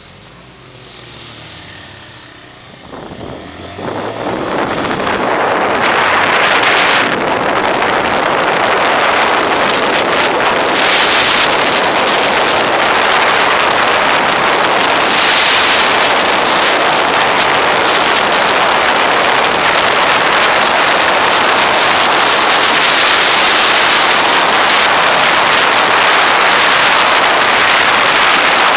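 A motorcycle pulls away from a stop with its engine revving through the first few seconds, then, once at road speed, loud steady wind rush on the onboard camera's microphone covers almost everything else.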